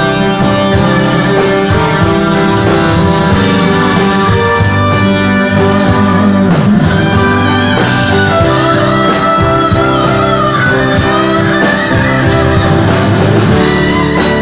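Live rock band playing loud, with an electric lead guitar carrying the song's melody over bass and drums. The lead guitar bends its notes up and down in the second half.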